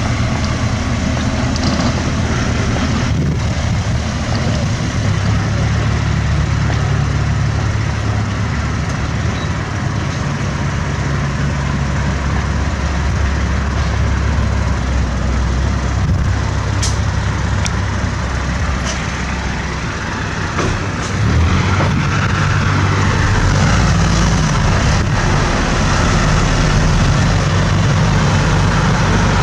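Crawler bulldozer's diesel engine running steadily with a low drone, growing louder about two-thirds of the way through as the machine works.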